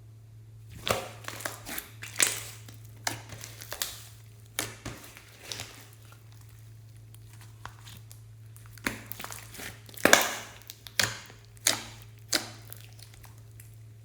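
Slime being squeezed and mixed by hand, making irregular crackling, squishing bursts in two runs with a pause between, over a steady low hum.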